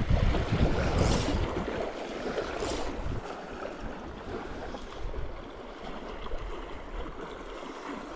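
Wind buffeting the microphone in heavy low gusts that die away over the first couple of seconds, over the steady rush of a shallow, riffling trout river.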